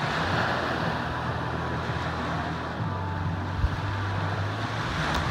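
Steady rushing wash of gentle sea water lapping, with a low steady engine-like hum underneath.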